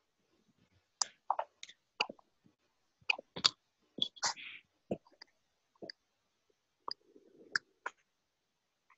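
Irregular, sharp clicks from a computer mouse and keyboard in use, with silence between them.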